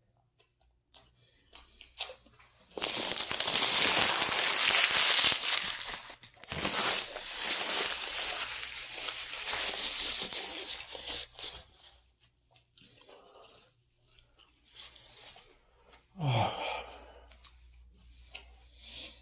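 A wrapper being torn open and crinkled in two long, loud stretches, then scattered quieter handling noises. About sixteen seconds in comes a short, low throaty sound that falls in pitch.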